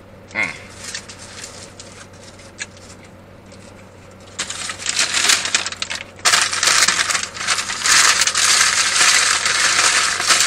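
Paper takeout bag and foil burger wrapper being crumpled and rustled, a loud dense crackling that starts about four seconds in, pauses briefly, and carries on.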